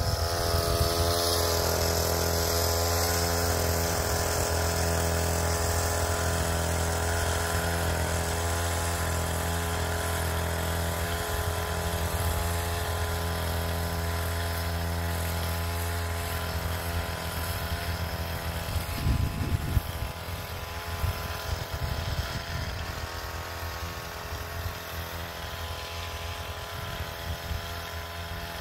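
Two-stroke petrol engine of a motorized backpack sprayer running steadily at a constant speed, with a hiss of spray in the first few seconds. It grows fainter over the second half as the sprayer moves away.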